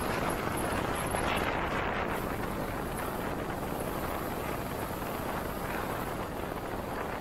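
Wind rushing over the microphone of a moving motorcycle, with engine and road noise underneath; a steady rush that swells slightly about a second in.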